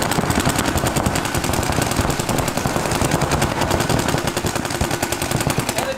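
Paintball markers firing long, rapid strings of shots, many a second and overlapping, in a steady stream of gunfire.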